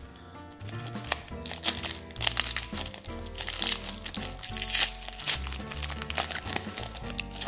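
Foil Pokémon booster pack wrapper crinkling loudly as it is torn open by hand, loudest about halfway through, over steady background music.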